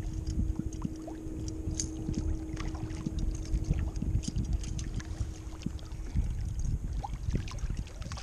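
Water lapping and splashing against a plastic fishing kayak's hull, with redfish thrashing at the surface alongside in small sharp splashes. Wind rumbles on the microphone underneath.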